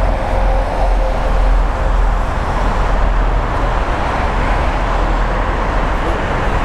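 Steady roar of jet airliner engines at an airport, with a heavy low rumble. A faint whine fades out about two seconds in.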